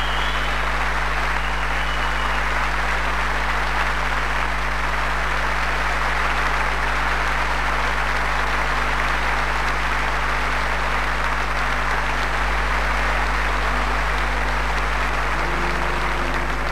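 Large concert audience applauding steadily, over a constant low electrical hum. Near the end a few notes of music come in.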